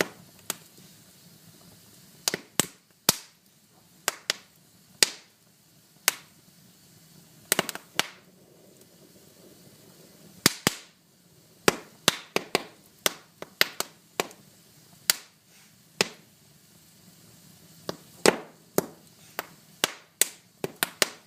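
Wood fire crackling: irregular sharp pops and snaps over a faint steady hiss.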